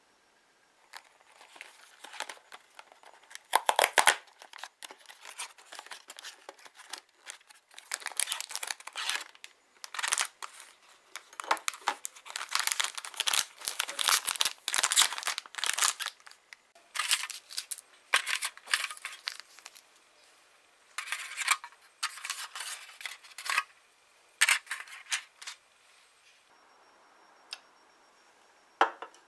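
A cardboard kit box being torn open and unpacked by hand: irregular bursts of tearing card and crinkling plastic, dying down near the end.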